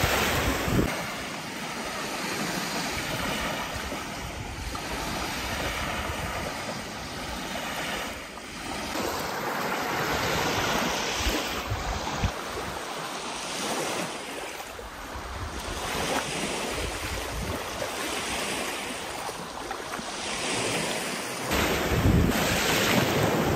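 Small lake waves washing onto a sandy beach, swelling and fading every few seconds, with wind buffeting the microphone at the start and again near the end.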